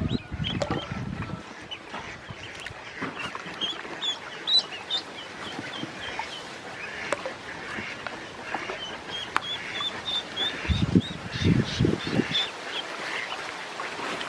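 Ducklings peeping, many short high chirps repeated throughout. Low thumps break in at the start and again about eleven seconds in.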